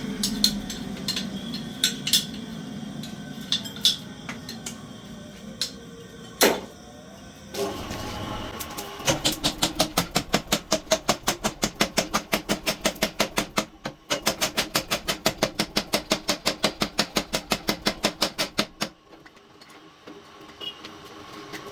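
Hammer forging steel: a few scattered metal knocks, then a fast, even run of hammer strikes, about four a second, lasting some ten seconds before stopping.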